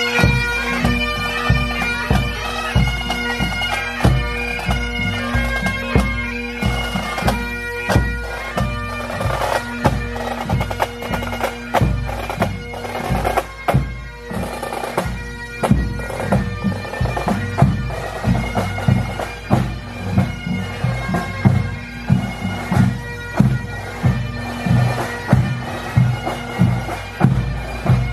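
A pipe band of Great Highland bagpipes and drums playing a march: steady drones under the chanter melody, with regular drum beats.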